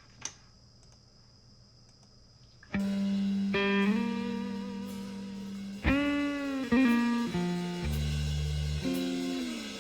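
Near silence for nearly three seconds, then a blues-rock song starts abruptly: electric guitar playing long sustained notes that bend in pitch.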